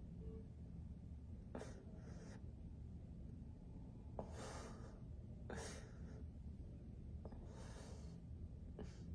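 A man breathing audibly and heavily, about five or six slow breaths in and out, as he holds back tears with emotion.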